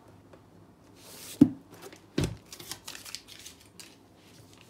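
A spiral-bound paper booklet handled on a desk: a short rustle and slide of paper, then a sharp knock and a heavier thump about two seconds in as it is moved and set down, followed by a few light taps.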